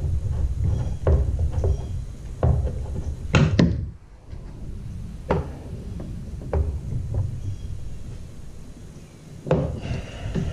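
Handling noise from working on a Mosquito Magnet Patriot Plus power head: a scattered series of clicks and knocks on its plastic housing, the loudest about three and a half seconds in and another near the end, over a low rumble of handling at the start.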